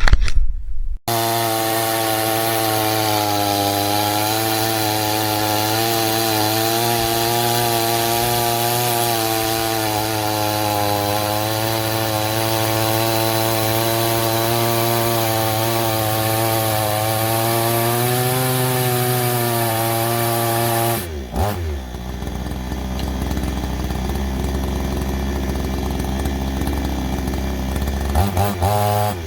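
PROYAMA 62cc two-stroke gas chainsaw running loud and steady at high revs. About two-thirds of the way through, the pitch drops and it settles into a lower rumble, then picks up again near the end.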